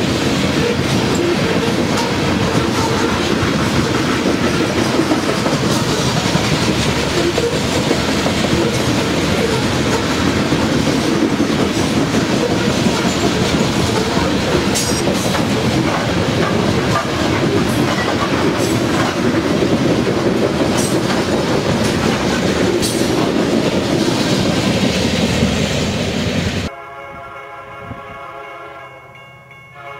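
Coal hopper cars of a BNSF coal train rolling past close by: a steady rumble of steel wheels on rail with clickety-clack over the joints. Near the end it cuts off suddenly to a quieter scene where a distant locomotive horn sounds.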